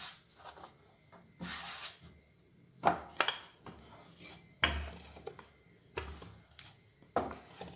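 Wooden rolling pin rolling out dough on a stainless steel sink top, with a scraping rub and about five sharp knocks and thuds as the pin strikes the metal.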